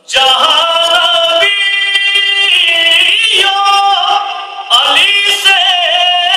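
A man reciting a devotional Urdu naat unaccompanied into a microphone, singing long held notes with wavering, ornamented pitch. He comes in just after a short pause and breaks briefly for breath about four and a half seconds in.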